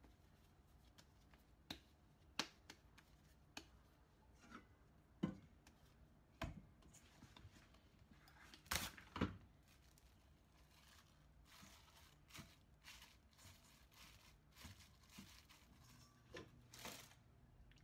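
Faint sounds of hands kneading and handling a ball of dough on a plastic cutting board and in a stainless steel bowl: scattered soft knocks and rustles, the loudest a pair of knocks about nine seconds in.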